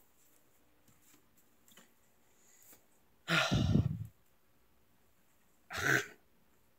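Two heavy breathy sighs close to the microphone: a longer one about three seconds in, then a shorter one near the end.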